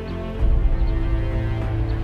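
Background music track with a heavy bass line, which comes in louder about half a second in.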